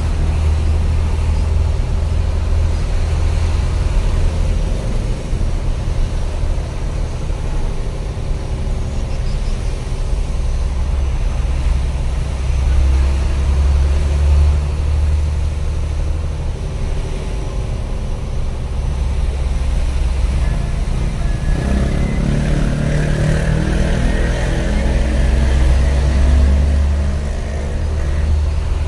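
Truck engine running steadily while driving through town traffic, heard from inside the cab as a low rumble. The engine note rises about three quarters of the way through.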